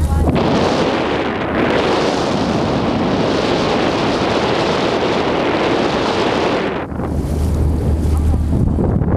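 Wind buffeting the microphone on the open deck of a moving tour boat, a loud rushing that eases about seven seconds in. As it eases, the boat's steady low engine hum comes through.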